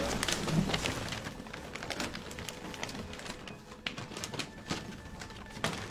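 Paper rustling and envelopes being opened by many people in a seated audience: a steady scatter of small crackles and clicks.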